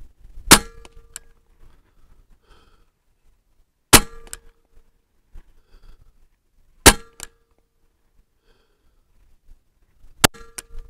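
Evanix Cloud Ultra .25 semi-automatic PCP air rifle firing four shots about three seconds apart. Each shot is a sharp crack followed by a brief metallic ring.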